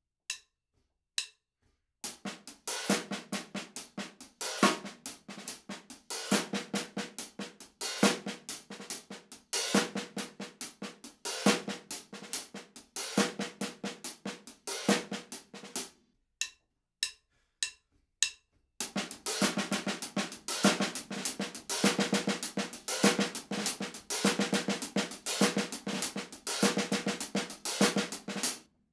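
Drum kit played with the hands only: a busy sixteenth-note hi-hat pattern with open hi-hat accents, snare hits on the off-sixteenths and a ghosted buzz roll on the snare at the end of each bar, in a precise funk groove. It is played first at a slow tempo of 70 bpm, then, after a short break with a few sparse clicks, at a faster 100 bpm.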